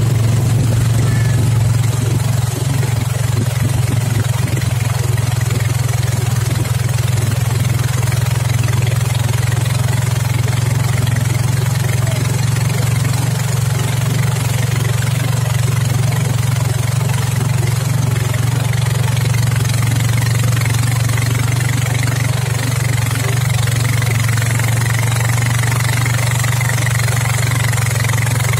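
Boat motor running steadily at speed while towing a tube, a constant low drone over the rush of water and wind.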